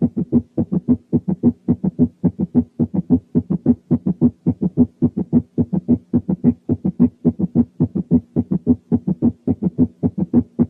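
Recorded heart sounds at a fast rate with a third heart sound: first, second and third sounds come at nearly equal spacing, giving a galloping three-beat rhythm of low thuds (S3 gallop). In adults this gallop is abnormal and is typical of heart failure.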